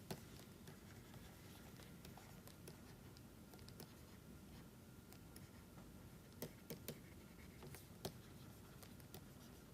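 Near silence with faint pen writing: light scratching and a few soft taps of the pen, bunched in the second half.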